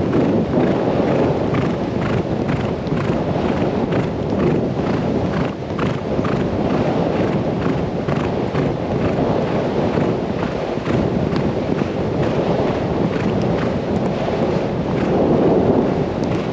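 Horse galloping on a sandy track: hoofbeats in a fast, even rhythm, heard over wind rushing across the microphone.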